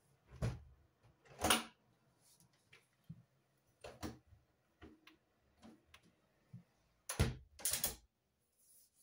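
Irregular knocks, clicks and rattles of a window sash and its fittings being handled, with a louder knock about a second and a half in and a quick cluster of knocks about seven seconds in.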